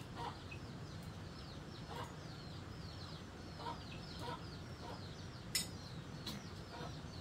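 Chickens: a steady run of high, falling peeps, several a second, with short clucks now and then and a sharp click about five and a half seconds in.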